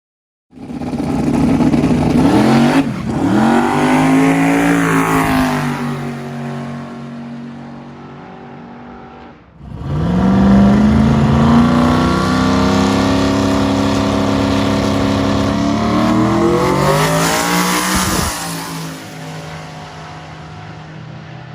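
A drag car's engine at full throttle on a pass, heard twice. Each time the pitch climbs, drops sharply at an upshift, then climbs again, and the sound fades as the car pulls away.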